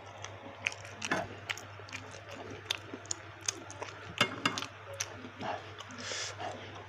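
Close-up eating sounds: a person chewing and biting baso aci (tapioca meatballs), with irregular wet clicks and mouth smacks and a brief hiss near the end, over a steady low hum.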